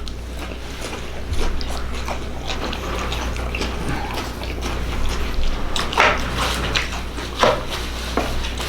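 A person chewing food close to the microphone: irregular wet mouth clicks and smacks, a few louder ones past the middle, over a steady low hum.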